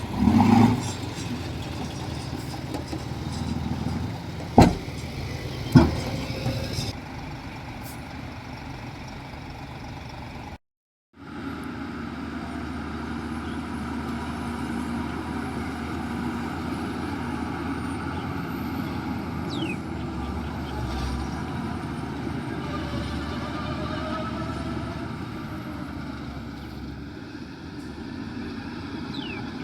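Heavy diesel engines of earthmoving machinery running steadily, with a loud burst just after the start and two sharp bangs a little over a second apart. The sound cuts out for a moment about a third of the way in, then the engine noise carries on.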